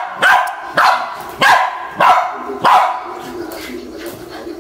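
A dog barking in short, sharp barks, about five in quick succession over the first three seconds, then quieter near the end. The dog is play-fighting with a cat.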